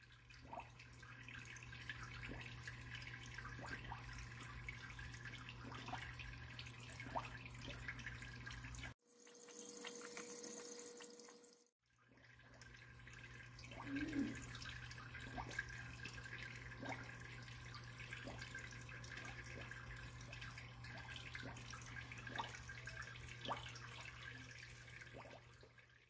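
Aquarium water splashing and dripping where a submerged pump churns the tub's surface, with small scattered plinks over a steady low hum. The sound breaks off for about three seconds around nine seconds in, then resumes.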